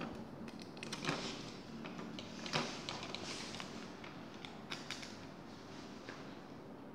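Plastic film and backing sheets from a tempered-glass screen protector kit rustling and crinkling as they are handled, with small clicks; the loudest rustles come about one second and two and a half seconds in.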